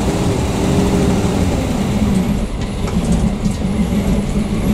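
A PAZ-672 bus's V8 petrol engine, with freshly adjusted valves, pulls the bus away in second gear. The engine note rises over the first second and then holds steady under load.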